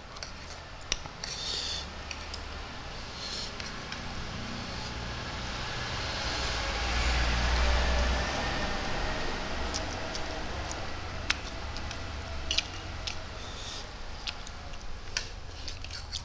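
A person slurping instant noodles, a long drawn slurp swelling to its loudest about halfway through, with a few sharp clicks of forks against the plate before and after it.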